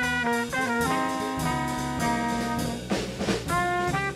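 Small jazz group playing: a saxophone melody of short, changing notes over drums and bass, with a brief burst of drums about three seconds in.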